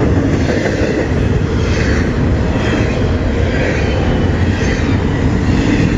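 Double-stack intermodal freight cars passing close by at speed: a loud, steady rumble of steel wheels on the rails.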